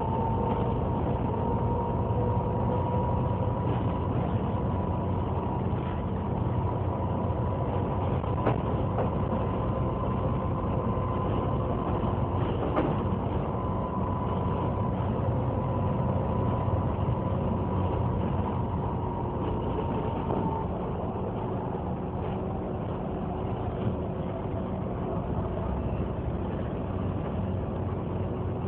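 Volvo B7TL bus's cooling fan whining like a vacuum cleaner over the steady rumble of its idling six-cylinder diesel. The highest note of the whine rises slightly, then sags and drops out about two-thirds of the way through, while the lower steady tones and the engine carry on.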